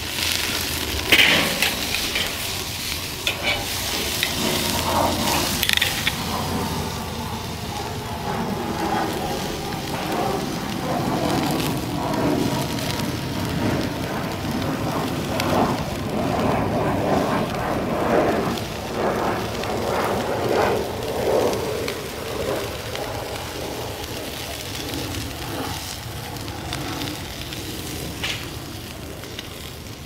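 T-bone steak sizzling and crackling on the hot grate of a charcoal kettle grill over glowing briquettes, with a sharp knock about a second in.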